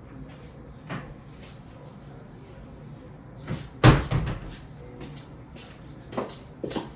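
Kitchen cupboard door banged shut, with a few lighter knocks and clatters around it; the loudest bang comes about four seconds in.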